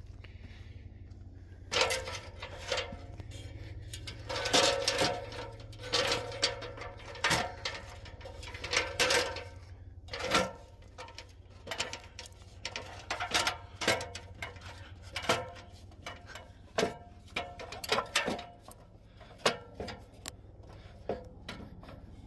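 A run of irregular knocks and clanks, some with a short metallic ring, about one or two a second, starting about two seconds in, over a low steady hum.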